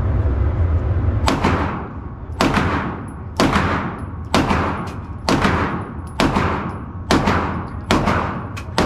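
Gunshots fired one at a time at an even pace: about nine sharp cracks, roughly one a second, each with a ringing tail. A low rumble underlies the start.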